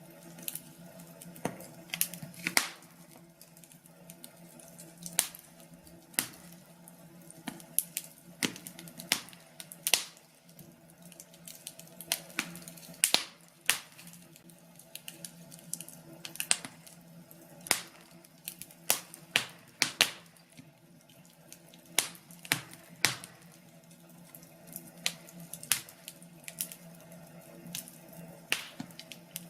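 Wood fire in a fireplace crackling, with sharp pops at irregular intervals over a faint, steady low hum.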